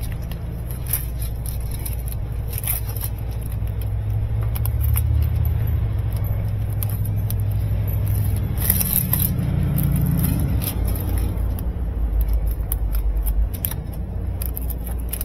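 A motor vehicle engine idling, a steady low hum that shifts a little in pitch partway through, with scattered light clicks and scrapes from a corrugated plastic washer drain hose and its fitting being handled.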